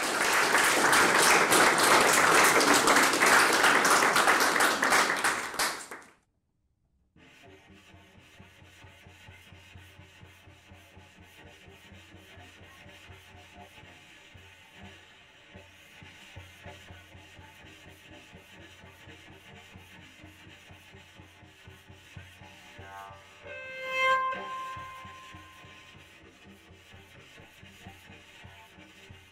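A loud, even rushing noise for about six seconds cuts off suddenly. After a second of silence comes a quiet, scratchy bow-rubbing texture of cello with electronics over a low steady hum. About 24 seconds in, a bowed cello note swells up and fades.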